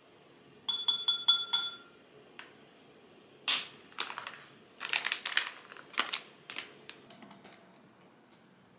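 A metal teaspoon tapped five times against the rim of a ceramic matcha bowl, each tap ringing briefly, knocking the matcha powder off the spoon. After that comes a looser run of clicks and crinkling as the spoon is set down and the matcha pouch is handled.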